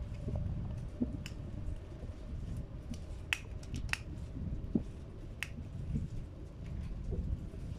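African grey parrot working a blue plastic bottle cap with its beak and foot: a handful of sharp, scattered clicks of beak on plastic.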